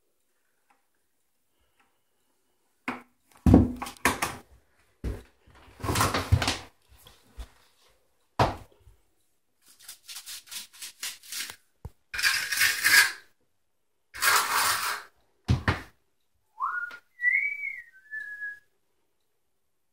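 A bucket and a flat steel trowel scraping and knocking while wet self-leveling underlayment is worked across a floor, in a string of loud scrapes. Near the end a person whistles a few rising and held notes.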